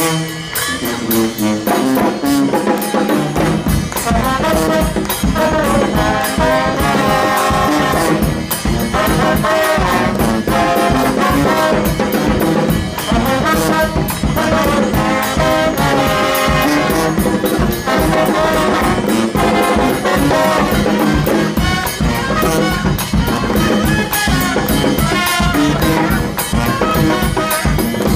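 Street brass band playing, with trombones and trumpets carrying the tune; a steady beat comes in about three and a half seconds in.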